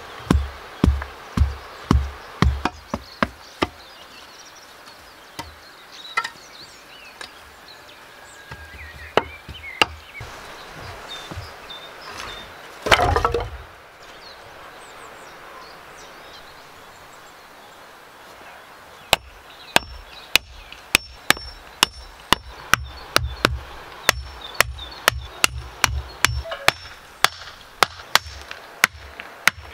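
A log tamper pounds loose earth in a trench, about two dull thumps a second, stopping about three seconds in. After a quieter stretch, sharp knocks start about nineteen seconds in, around two a second: an axe driving split wooden stakes into the ground.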